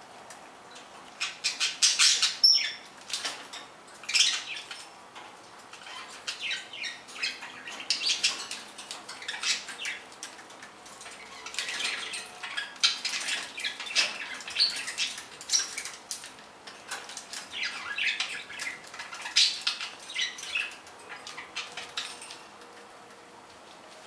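Budgies rustling and fluttering in a dish of wet lettuce leaves as they eat and bathe in it: bursts of crackling leaf rustle and wing flaps that come and go in clusters.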